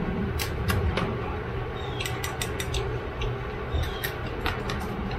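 Steamed blue crab shell cracking apart by hand and being eaten: a scatter of sharp cracks, snaps and crunches in short clusters, over a steady low hum.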